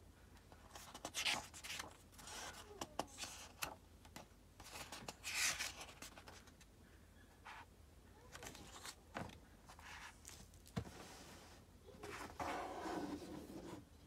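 Pages of a hardcover book being turned by hand: a series of short paper rustles and rubs. About two-thirds of the way through comes a soft thud, followed by the cover sliding and rubbing as the book is closed and handled.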